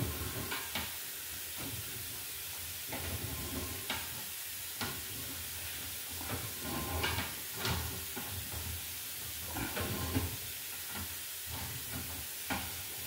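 Steady hiss of water running down a sewer line during a camera inspection, with scattered light clicks and knocks through it.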